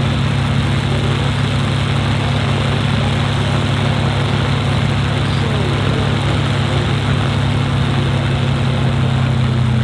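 WWII fighter's Rolls-Royce Merlin V-12 engine idling with a steady low hum as the propeller turns slowly while the plane taxis at walking pace.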